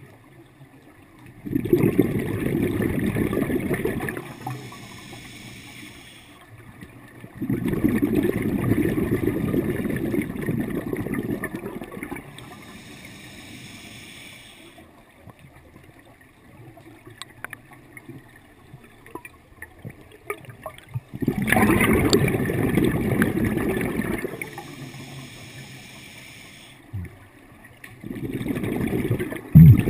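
Scuba diver breathing through a regulator underwater: exhaled bubbles gurgle in four bursts of a few seconds each, with a quieter hiss between them.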